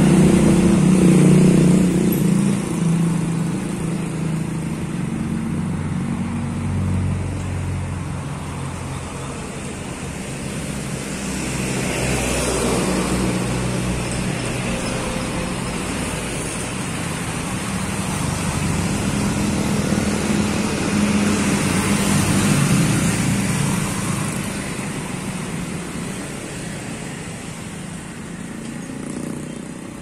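Road traffic: diesel dump trucks and other vehicles drive past close by, engines running with a low drone, loudest near the start and swelling again twice as more vehicles pass.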